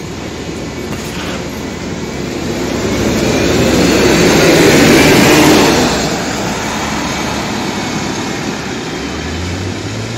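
Electric trolleybus pulling away from a stop and driving off, its running noise growing to its loudest about halfway through and then fading as it moves away.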